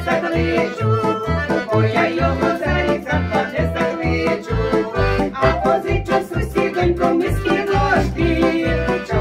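Piano accordion playing a folk tune, with a steady rhythmic bass-and-chord accompaniment under the melody.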